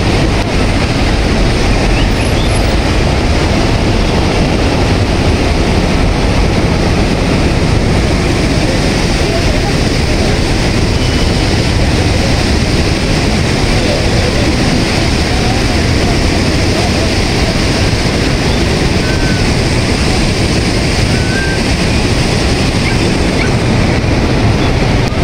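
Steady, loud rush of the flooded Bagmati river's fast, turbulent water.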